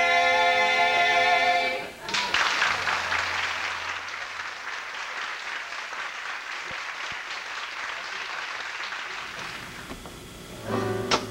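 Three male voices singing unaccompanied in close harmony, holding a final chord that cuts off about two seconds in. Audience applause follows and slowly dies away, and music starts up near the end.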